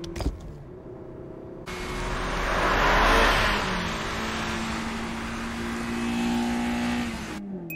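Toyota AE86 Trueno's twin-cam four-cylinder engine running hard under acceleration, with a loud rush of wind and road noise as the car speeds past. The engine note rises slightly toward the end and cuts off suddenly. A short click right at the start goes with the gear lever being shifted.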